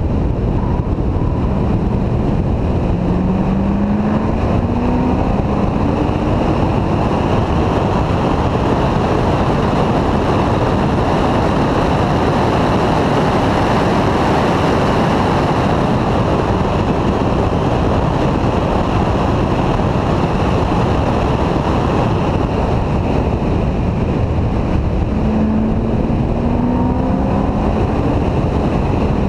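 Wind rushing over the microphone at track speed, with the C6 Corvette's V8 engine under it. The engine note rises in pitch as the car accelerates out of the corners, about three seconds in and again near the end.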